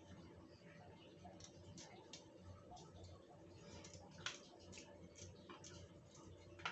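Faint, scattered clicks and crackles of garlic cloves being peeled by hand over a steel plate, with one sharper click a little past four seconds in.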